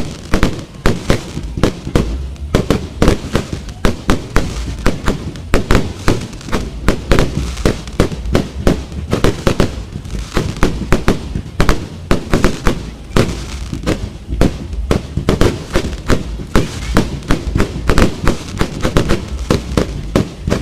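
Fireworks going off in a rapid barrage: shells launched from the ground and bursting overhead, with sharp bangs and crackling several times a second and no pause.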